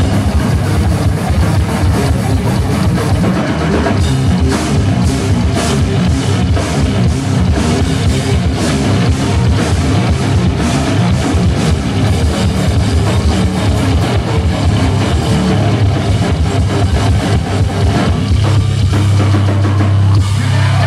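Hard rock band playing live at full volume: distorted electric guitars, bass and a drum kit with crashing cymbals. Near the end a low chord is held and rings on as the song closes.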